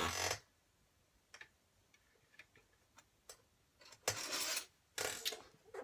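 A few faint scattered clicks and knocks of things being handled, then two short scraping bursts near the end.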